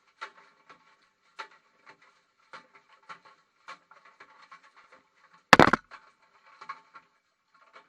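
Light knocks and taps from a GoPro tumbling inside a washing machine drum, coming roughly every half second, with one much louder bang about five and a half seconds in.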